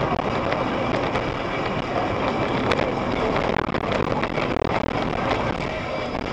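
Steady road and wind noise of a moving vehicle.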